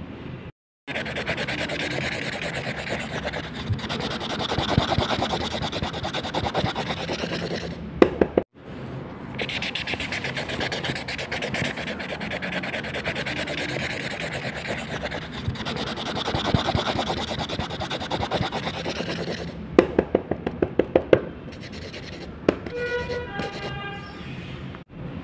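Felt brush-pen tips scratching and rubbing on paper in quick, dense colouring strokes, broken by a couple of short silences. There are a few sharp ticks about a third of the way in and a quick run of them a little past the three-quarter mark.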